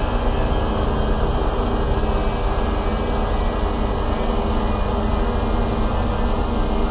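Dark ambient drone: a dense, steady wall of noise with many low held tones running through it, unchanging.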